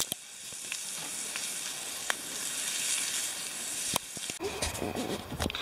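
Steaks sizzling on a cast-iron griddle over a wood campfire, a steady high hiss broken by a few sharp pops. Near the end it gives way to a low rumble.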